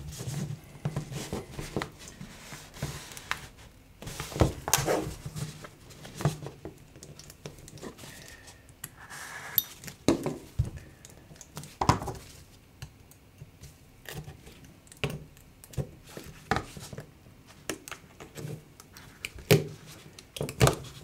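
Opening tools and gloved hands working an iPhone 12 Pro's display free, cutting and prying through the adhesive that holds the screen: irregular small clicks, scrapes and taps on glass and metal, with a few louder knocks.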